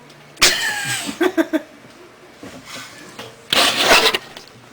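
A person's wordless vocal outbursts: a sudden loud cry falling in pitch about half a second in, a few quick short voiced sounds just after, then a loud breathy burst near the end.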